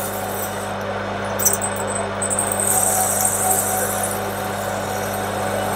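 Metal lathe motor running steadily as a 5 mm twist drill in the tailstock chuck bores a deep hole into a spinning brass pump body. A high hiss from the cut comes and goes, strongest from about two and a half to four seconds in.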